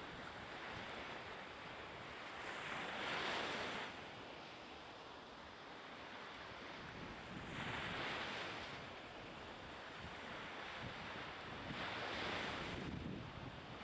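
Seaside wind and small waves washing onto a shingle shore: a steady hiss that swells three times, about four to five seconds apart, as each wash comes in.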